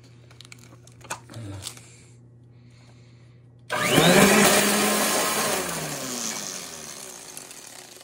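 A Royal Commercial upright vacuum's motor is switched on about four seconds in and spins up with a loud whir, like a weed whacker, then winds down steadily with a falling pitch. Starting it pulls the slipped brush-roll belt back onto its pulley. Before it, only a couple of small clicks.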